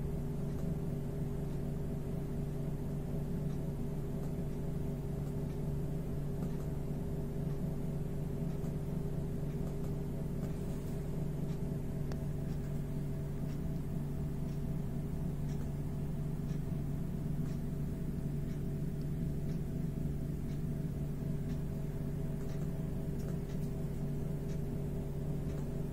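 Steady machine hum made of several low tones that hold without change, with a few faint light ticks in its second half.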